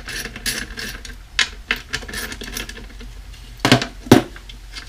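Small metal drum hardware clinking and rattling as it is handled, with two louder knocks about half a second apart near the end.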